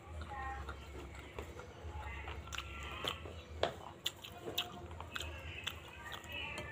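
Close-miked mukbang eating sounds: wet chewing and biting on bakso meatballs and raw chili, with scattered sharp clicks from the mouth and spoon, over a low hum.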